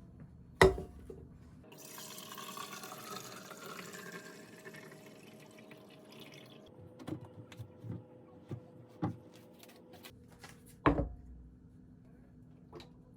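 Water running from a kitchen tap into a container for a few seconds, then stopping, followed by light clinks and taps of kitchenware and a dull thump near the end.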